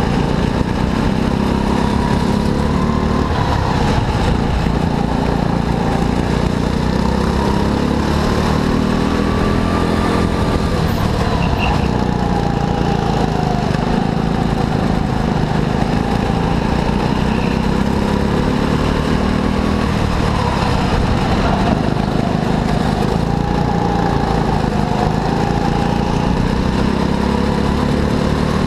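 Go-kart engine running at speed, its pitch rising and falling every few seconds as the throttle is opened and eased.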